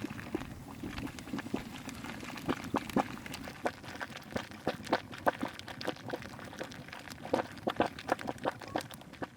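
Water boiling in a pot of jars for sterilizing canned meat, bubbling with many irregular pops and knocks throughout.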